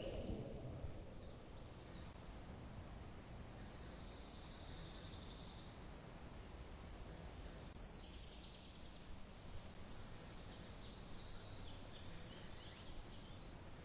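Faint birdsong over a steady low outdoor rumble: a high trill lasting about three seconds a few seconds in, a shorter one near eight seconds, and a run of short, quick high notes toward the end.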